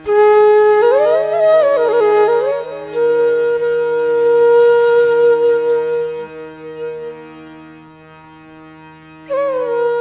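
Indian classical music: a flute melody over a steady drone, opening with quick slides and ornaments, then one long held note that fades away, and a new phrase entering near the end.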